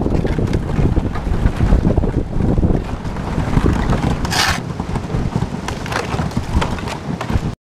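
Kayak hull breaking and grinding through thin lake ice: a continuous, irregular crunching and crackling with a brighter crash about four and a half seconds in. The sound stops abruptly near the end.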